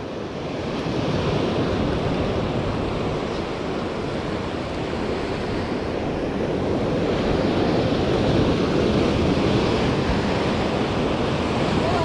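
Ocean surf breaking and washing against a rocky shoreline just below, a continuous rush of white water that swells twice as sets of waves come in.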